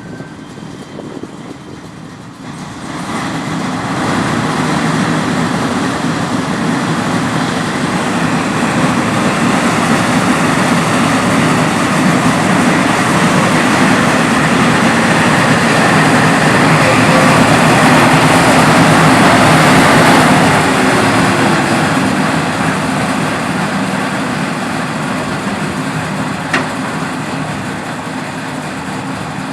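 KRTTZ snow-clearing tram running under test: a loud rushing noise over a steady motor hum. It builds up two or three seconds in, is strongest about twenty seconds in, then eases off, with a single sharp click near the end.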